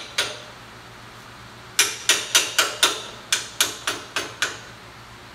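Hammer tapping a steel inner C gusset down onto a Dana 30 axle C to seat it snugly. There is a single tap, then a quick run of about ten taps with a short pause midway.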